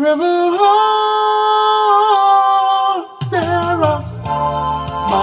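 Singing: one high note held for about three seconds, then the singing goes on over a backing track whose bass line comes in just after three seconds.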